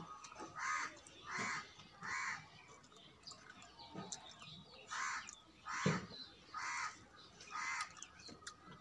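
A bird calling repeatedly: a run of three calls, a pause, then four more, each under half a second. A few soft knocks of fingers working rice in a steel plate come between them.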